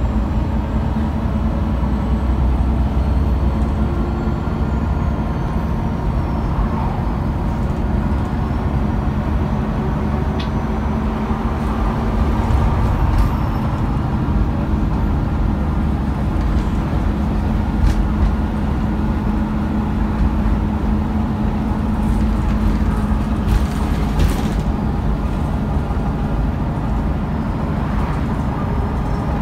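Interior of a MAN A23 articulated city bus on the move: a steady engine and drivetrain drone with road rumble, and now and then a short rattle from the cabin fittings.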